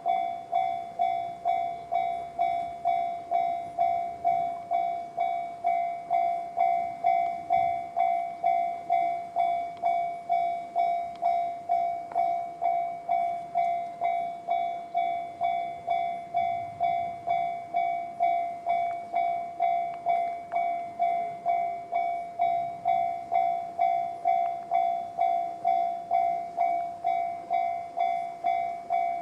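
Japanese railway level-crossing alarm sounding the JR standard electronic warning tone: a bell-like ding repeated steadily about twice a second, each strike fading quickly. It signals a train approaching or passing the crossing.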